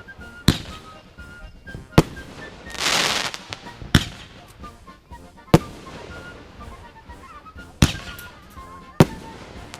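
Fireworks going off: six sharp bangs spaced a second or two apart, with a short hiss about three seconds in.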